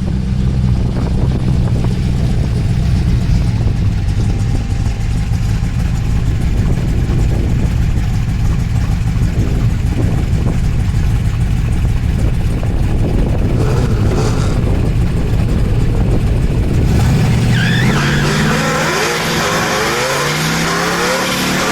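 Car engine running steadily at low revs, then about 17 seconds in a car accelerating hard at a drag strip. Its engine pitch climbs, drops at each gear change and climbs again, several times.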